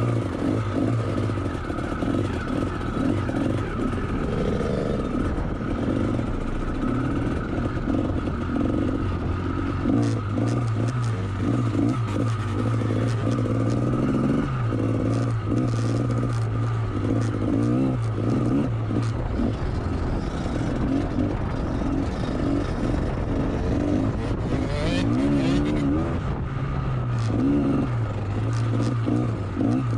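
GasGas MC125 motocross bike's 125 cc two-stroke engine being ridden hard, its pitch rising and falling with the throttle.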